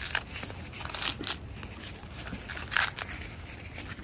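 Husk leaves being torn and peeled off an ear of corn by hand: a few short rustling tears, the loudest one near the end.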